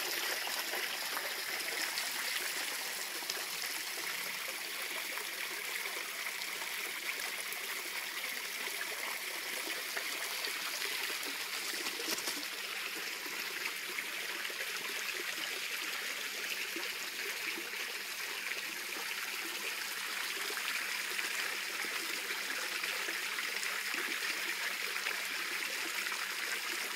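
Small garden pond fountain running: water trickling and splashing steadily into the pond.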